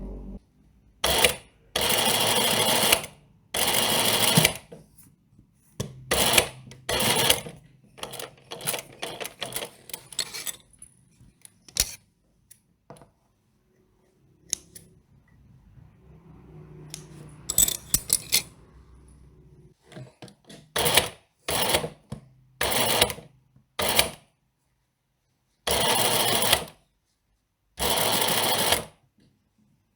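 Sewing machine stitching in short runs of about half a second to a second, stopping and starting over and over, with softer irregular clicks between some runs.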